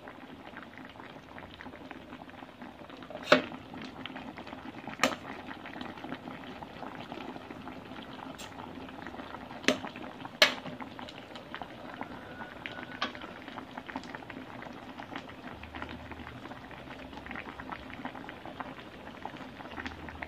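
A pot of sinigang na tilapia, a fish and vegetable soup in rice-wash broth, boiling steadily on the stove with a continuous bubbling, broken by a few sharp clicks.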